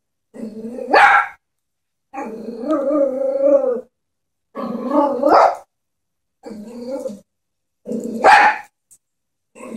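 Chihuahua growling and barking: low growls that rise into a sharp bark three times, with one long growl between them, a small dog's warning display at a stuffed toy it is scared of.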